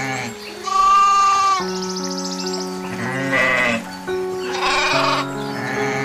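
Goats bleating: three separate calls, the first about a second in and the loudest, over background music with long held notes.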